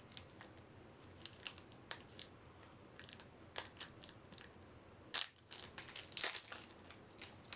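A trading-card booster pack wrapper being handled and opened: scattered light crinkles and crackles, with a louder rustle about five seconds in and another about a second later.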